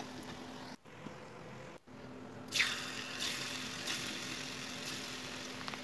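Besan pieces frying in hot oil in a metal kadhai, a steady sizzle that breaks off briefly twice, then grows louder and brighter about two and a half seconds in, over a faint steady hum.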